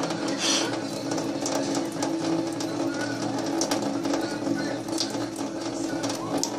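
Thin stream of tap water running into a steel sink, an even hiss with small clicks and splashes, over a steady low hum.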